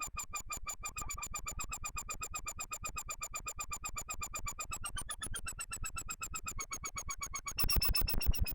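Behringer Neutron analog synthesizer sounding a rapidly pulsing tone, roughly ten pulses a second. Its pitch bends upward about five seconds in, and near the end it turns louder and noisier.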